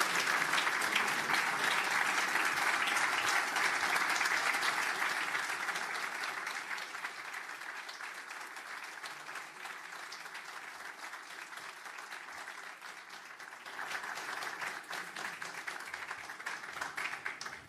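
Audience applauding. It is loud at first and dies down after about six seconds, then swells again about fourteen seconds in before fading.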